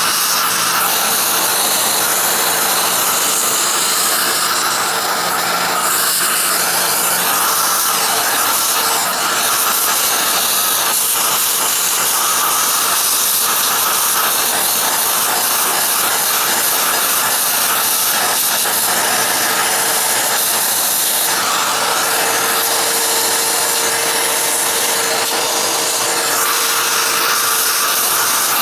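Vacuum cleaner hose with an extension nozzle sucking dust out of a VCR's circuit board and power supply. The result is a steady, loud rush of air with a faint hum, its tone changing slightly now and then.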